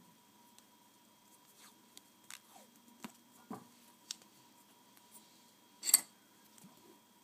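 Light clicks and taps of a small circuit board, pin headers and tape being handled on a workbench, with one louder short crackle near the end.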